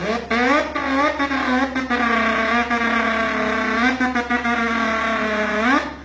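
A man imitating a Mazda RX-7's rotary engine with his mouth through cupped hands: several quick revs rising in pitch in the first two seconds, then a high steady note held for about four seconds, ending in one more quick rise and a sudden stop.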